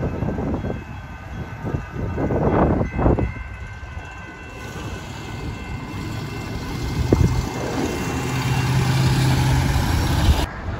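San Diego Trolley light-rail train at a street grade crossing, heard over wind and road noise. There are two loud short blasts about two and a half to three seconds in, and a low steady hum builds near the end.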